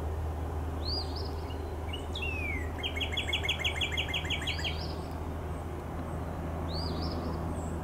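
Songbirds singing outdoors: a few short upswept whistles and, near the middle, one fast trill of about a dozen notes, over a steady low rumble of wind or distant background noise.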